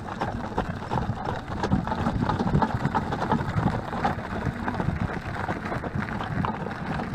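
Hooves of a pair of Friesian carriage horses clopping at a walk on a leaf-strewn paved lane, mixed with the carriage wheels rolling and rustling over dry leaves in a dense run of irregular clicks.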